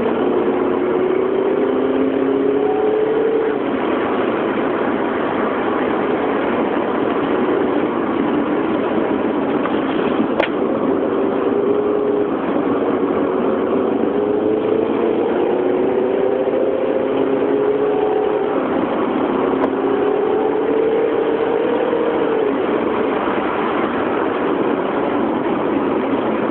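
Car engine heard from inside the cabin, pulling hard and easing off in turn, its pitch climbing and dropping several times, over steady road and wind noise.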